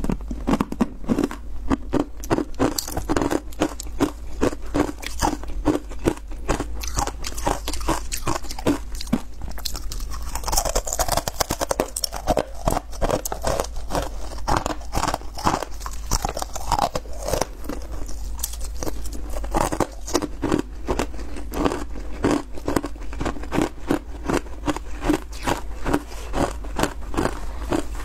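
Chunks of ice being bitten and chewed right at a clip-on microphone: a continuous run of sharp, crackling crunches.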